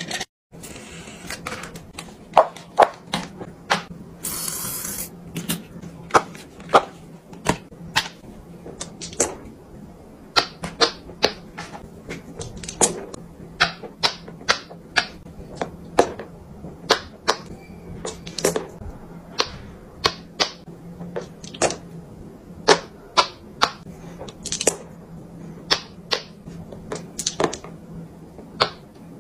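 Silicone pop-it fidget toy bubbles being pressed one after another, giving irregular sharp pops, roughly one or two a second. A brief hiss comes about four seconds in, and a low steady hum lies underneath.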